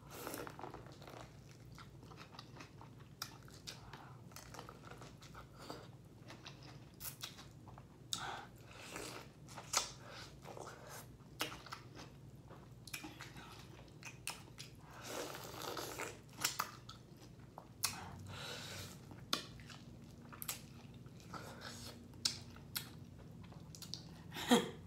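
Boiled corn on the cob being bitten and chewed close to the microphone: irregular crunching bites and chewing, some sharper clicks among them.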